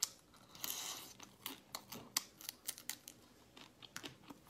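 Close-miked chewing of a piece of spicy lobster tail: irregular sharp clicks and wet crackles of mouth and food, with a short hiss about half a second in.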